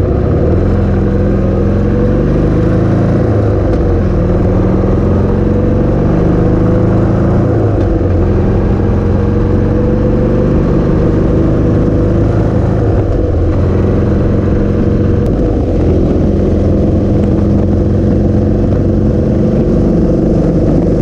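Harley-Davidson Sportster V-twin engine under way on the road, its pitch climbing and falling back about three and eight seconds in as it shifts up, then running steadily at cruising speed with wind noise over the microphone.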